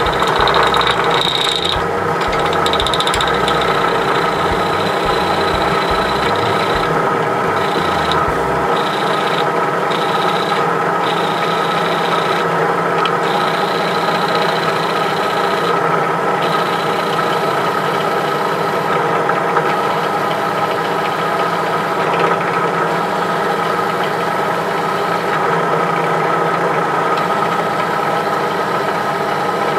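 Bench drill press running steadily with an even motor hum while its bit drills out the crimped die-cast metal rivet of a toy car's base.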